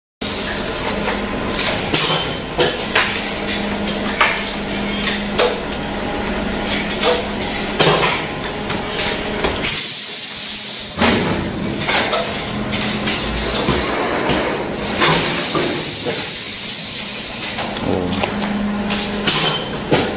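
12 kW rotary high-frequency welding machine running: irregular clacks and knocks from its moving parts over a steady hum. Two spells of hissing come about ten and fifteen seconds in.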